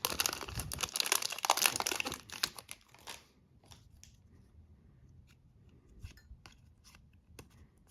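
A hockey card pack's wrapper being torn open and crinkled for about three seconds, then a few faint taps and clicks as the cards are handled.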